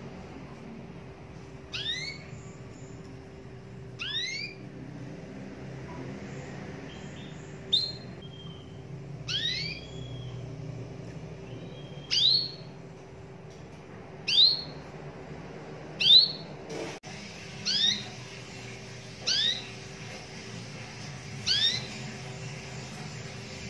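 Domestic canary (local Indonesian 'kenari lokal') giving a short rising call about every two seconds, about ten calls in all, each a quick upward sweep in pitch.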